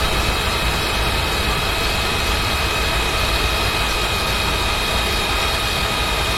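Inside the cabin of a Skoda Scala 1.5 TSI with DSG gearbox driving along: a steady low rumble of engine and road noise, with a faint steady high whine over it.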